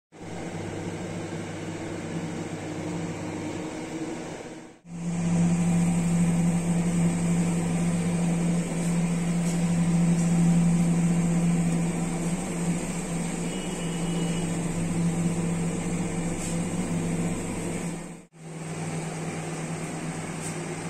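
Steady mechanical hum with a low drone, like a fan or motor running, breaking off briefly twice: about five seconds in and near the end.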